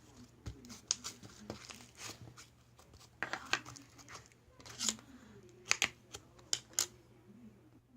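Slime being squished and poked by hand, giving irregular sticky clicks, pops and crackles, in louder clusters about three, five and six to seven seconds in.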